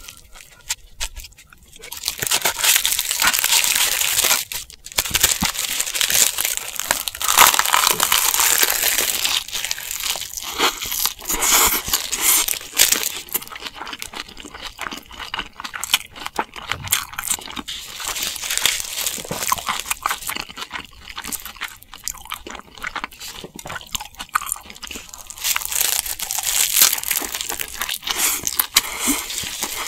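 Crisp dried seaweed (gim) crackling and crunching as a seaweed-wrapped mouthful of rice is chewed, with rapid crinkling noises that come and go in loud stretches throughout.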